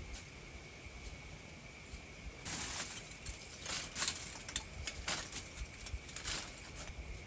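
Handfuls of charcoal clattering and rustling as they are tipped into the top of a clay-and-brick shaft furnace to charge it during an iron smelt: four or five short scrapes and clatters, the first at about two and a half seconds. Behind them insects keep up a steady high drone.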